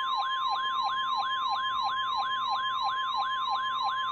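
Emergency alert attention signal for a flash flood warning: a steady high tone overlaid with a siren-like sweep that falls in pitch and repeats about four times a second.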